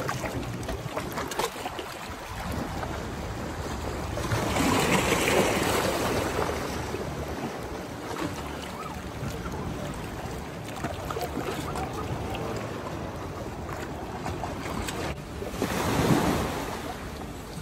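Small sea waves lapping against boulders and washing up a sandy shore, with wind buffeting the microphone. The wash swells louder about five seconds in and again near the end.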